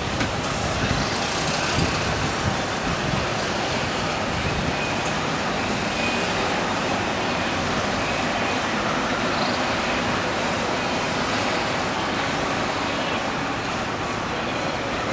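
Steady outdoor traffic noise, an even wash of passing vehicles with no distinct events standing out.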